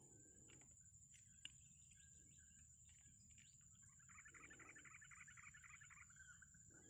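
Near silence with faint bird calls: a rapid chattering run lasting about two seconds, starting about four seconds in. A faint steady high-pitched whine runs underneath.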